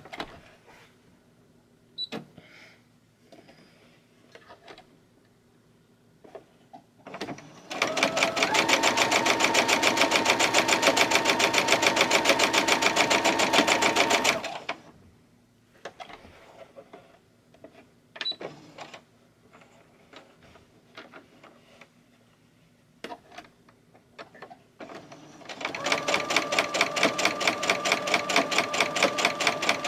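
Brother SE400 computerized sewing machine stitching in two runs of fast, even strokes: one of about seven seconds, and one starting about 25 seconds in. It runs with a little bit of a clunk that is not quite right, a fault she connects with thread bird-nesting from a damaged bobbin case.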